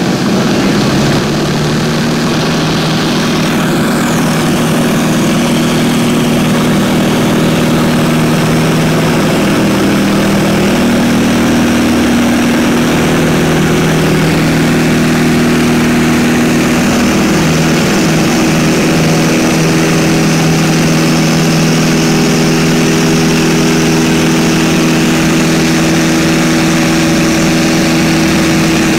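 A 1946 Stinson 108's Franklin six-cylinder air-cooled engine and propeller running at high power for takeoff, heard from inside the cabin as a loud, steady drone.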